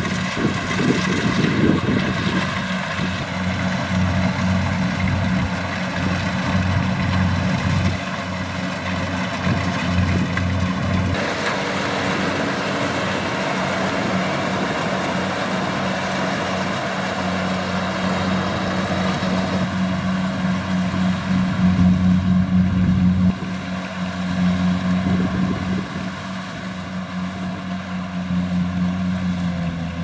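Kubota DC-70 Plus rice combine harvester working in the crop, its diesel engine running steadily under the load of cutting and threshing. The sound shifts abruptly twice, about 11 and 23 seconds in.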